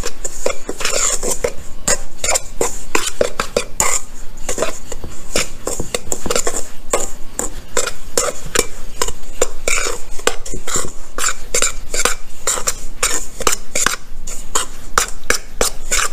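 A metal spoon stirring a dry flour-and-seasoning mix in a stainless steel mixing bowl, clinking and scraping against the bowl over and over in a quick, irregular run.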